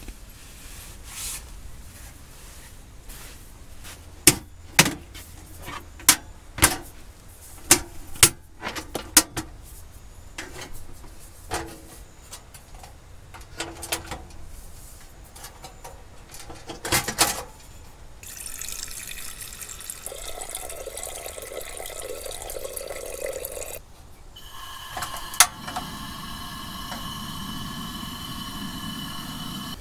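A run of sharp clicks and knocks as camp gear is handled, including the metal windshield flaps of a two-burner portable gas stove being opened. Water then pours for several seconds. After a sharp click, a steady hiss follows from the stove's gas burner under a cast-iron kettle.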